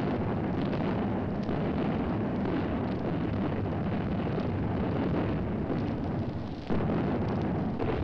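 Battle sound effect of heavy cannon fire: a continuous rumble of booms, with a fresh loud blast about a second before the end.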